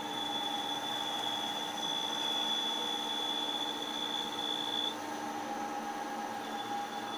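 CNC machine running while machining a part: a steady mechanical whine made of several tones over a hiss. The highest tone cuts out about five seconds in and comes back shortly before the end.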